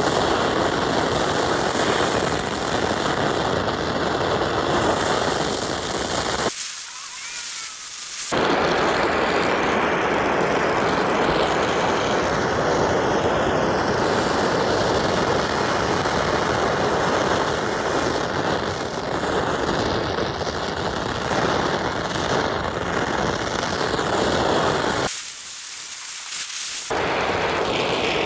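Gas burner flame running with a loud, steady roaring hiss while heating silver to melt it. The low part of the roar drops out twice for a couple of seconds, about six seconds in and about three seconds before the end.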